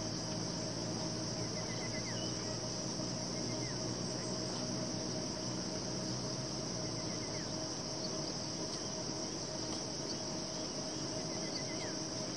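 Steady, high-pitched chorus of insects such as cicadas or crickets, unbroken throughout, with a few faint short chirps over it.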